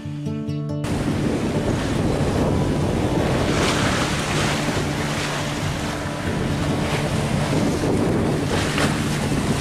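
Wind buffeting the microphone and waves rushing along the hull of a sailboat under way, cutting in suddenly under a second in, with a few louder surges. Background music continues faintly underneath.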